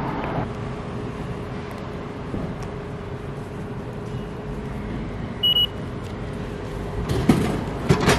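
Drink vending machine's IC card reader giving a short double beep as a Suica card is tapped to pay, over the machine's steady hum; about a second and a half later a run of knocks and clatter as the bottle drops down into the dispensing tray.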